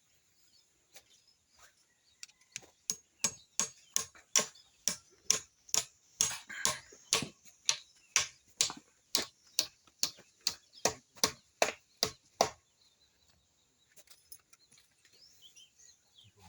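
Hammer blows in a steady rhythm, about two and a half a second, for roughly ten seconds, then stopping abruptly.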